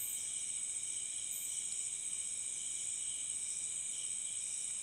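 A night chorus of crickets and other insects: a steady, high-pitched shrilling at several pitches at once.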